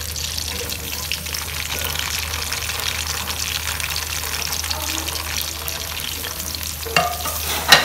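Sliced red onions sizzling and crackling as they go into hot oil in a metal pot. A metal spoon knocks against the pot twice near the end.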